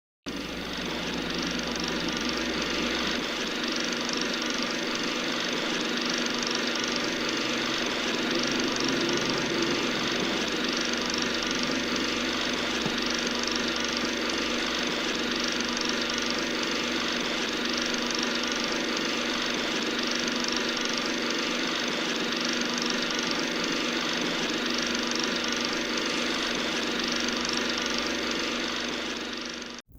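A machine running steadily with a constant hum of several fixed tones, starting and cutting off abruptly.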